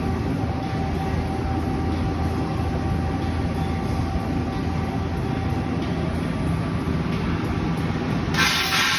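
Okuma LB3000EXIIMYW CNC lathe running, a steady mechanical hum with a faint whine that fades midway. A louder hissing noise starts suddenly near the end.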